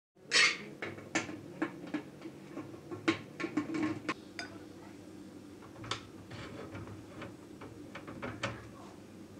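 A series of light metal clinks and knocks from a pressure cooker: a steel ladle against the pot, then the lid being set on and its handle locked.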